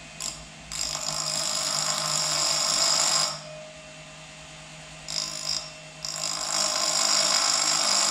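Woodland Mills blade sharpener's grinding disc spinning with a steady motor hum while a whetstone is pressed against it, dressing the disc's square edge toward the rounded profile of the blade's teeth. The stone grinds with a loud hiss from about a second in, eases off near three seconds, touches briefly near five seconds, and grinds again steadily from about six seconds.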